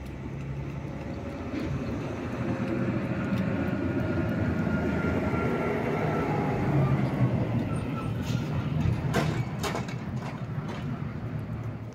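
Engine hum of a passing vehicle, swelling over several seconds and then easing off again, with a few sharp clicks about nine seconds in.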